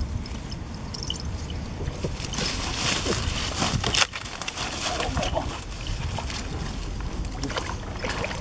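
Grass and brush rustling and crackling as a person pushes and crawls through dense vegetation, with sloshing in shallow muddy water as a hand reaches in. A sharp crack stands out about four seconds in.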